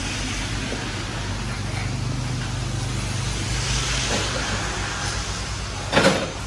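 Steady low mechanical hum with a hiss over it, and a single sharp knock about six seconds in.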